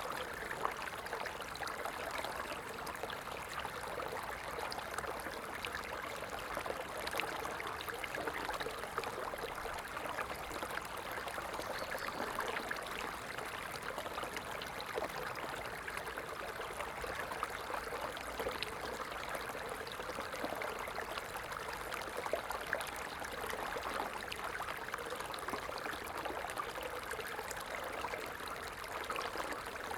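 A stream of water running steadily, with lots of small splashes and trickles over a continuous rush.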